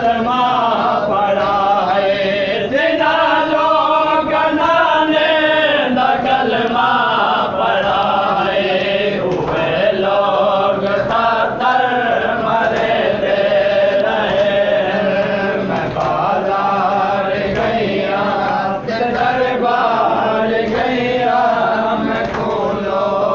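A group of men chanting a noha, a Shia mourning lament, together in sustained unbroken voices.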